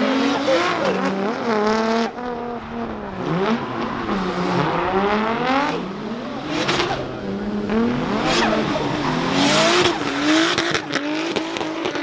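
Two drift cars running in tandem, their engines revving up and down at different pitches as the throttle is worked through the slide. Tyre squeal rises in bursts about six and a half and nine and a half seconds in.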